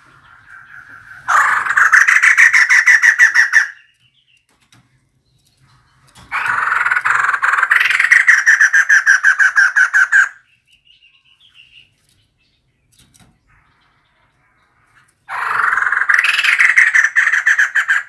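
Female white-crested laughingthrush calling: three bouts of fast, rattling chatter, each about two and a half to four seconds long, with pauses between them.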